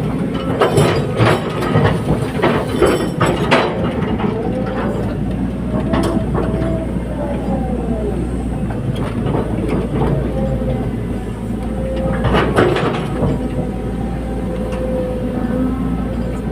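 Hydraulic excavator at work: its diesel engine runs steadily under a hydraulic whine that rises and falls, with bursts of metallic clanks and knocks in the first few seconds and again about twelve seconds in.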